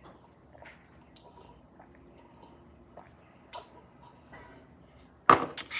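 Faint scattered clicks and mouth noises, then about five seconds in a sudden loud, noisy burst of sound.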